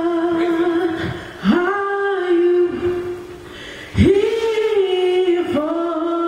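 A woman singing unaccompanied into a microphone, holding long sustained notes. She scoops up into a new note about a second and a half in and again at about four seconds, with a softer stretch just before the second scoop.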